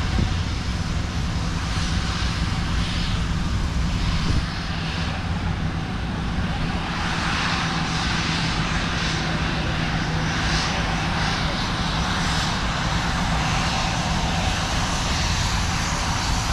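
Boeing B-17 Flying Fortress radial piston engines running with a steady, loud drone; the level dips slightly about four seconds in.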